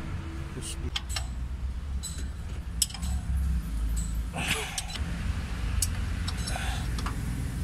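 Scattered light metallic clicks and clinks of tools and parts being handled against an engine, over a low steady rumble.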